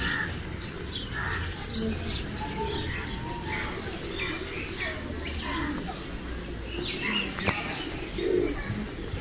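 Pigeons cooing and small birds chirping, over a murmur of distant voices.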